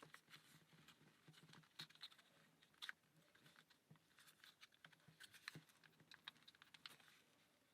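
Faint, irregular light clicks and taps of small laser-cut plywood parts of a UGears wooden combination lock puzzle being handled and fitted together.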